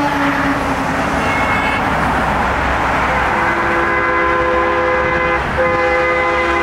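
Convoy traffic passing, with a vehicle horn giving a long blast from about halfway through, breaking off briefly and then sounding again near the end.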